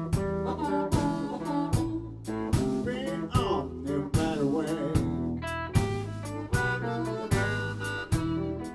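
Live electric blues band playing: drum kit keeping a steady beat under bass and electric guitar, with a blues harmonica played into the vocal mic.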